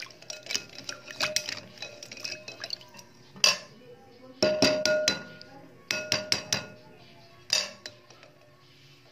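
Boiled eggs knocking and clinking against a glass bowl of water as they are handled, in several bursts of sharp clinks with handling noise.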